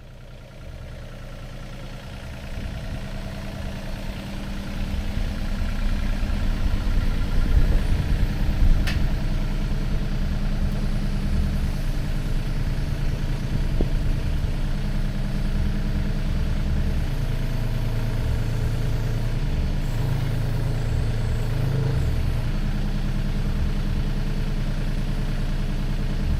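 Hyundai Robex mini excavator's diesel engine running at a steady idle, growing louder over the first few seconds and then holding level, with one sharp click about nine seconds in.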